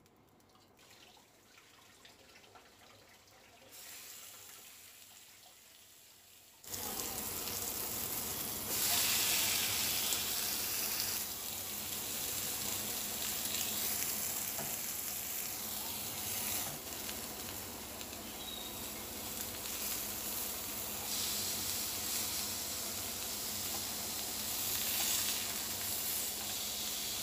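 Minced-meat kebab patties sizzling on a hot ridged grill. It is faint for the first several seconds, then the sizzling starts abruptly about seven seconds in and stays steady.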